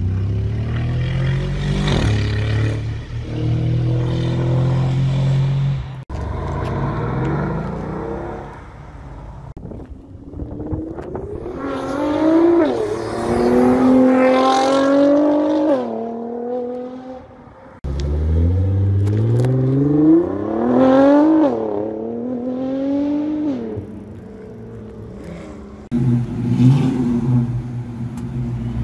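Several car exhausts in short clips, with engines accelerating hard in rising revs broken by gear changes. Among them is a Nissan GT-R pulling away through its gears. Near the end comes the low steady rumble of an early-1970s Oldsmobile Cutlass Supreme.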